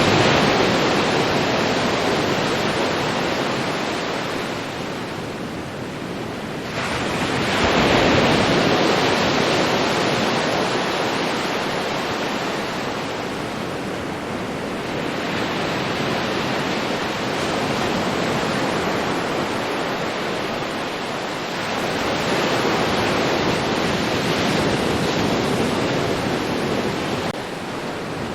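Ocean waves breaking and washing on a beach, a continuous surf wash that swells loudest with a wave about seven seconds in and again around twenty-two seconds.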